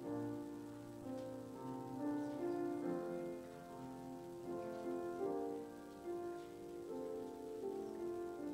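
Slow instrumental keyboard music: held chords that move to a new chord about once a second or two.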